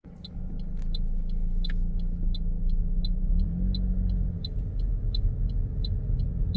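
Inside a moving car: steady engine and road rumble, with the turn-signal indicator ticking evenly about three times a second.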